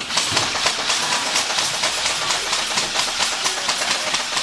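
Several airsoft guns firing rapidly, many shots overlapping in a continuous clatter.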